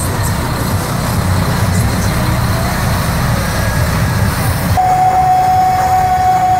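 Cement mixer truck's diesel engine rumbling steadily as the truck rolls past. About three quarters of the way through, the rumble gives way abruptly to a single long held musical note.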